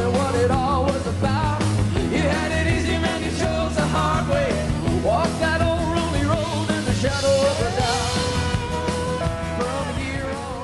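Rock band playing loud, with a male lead vocal over drums, bass and electric guitar.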